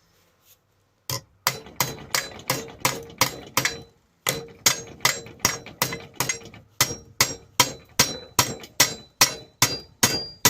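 Hammer striking metal in a rapid run of blows, about three a second, each with a bright metallic ring, with a brief pause partway through. The blows are trying to shift a seized part on a grinder.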